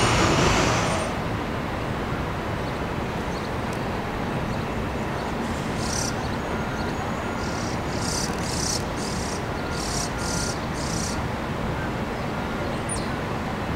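Steady distant rumble and hiss of an elevated subway line and city surroundings, with trains approaching far off, and short high chirps between about six and eleven seconds in. A louder passing-train noise cuts off abruptly about a second in.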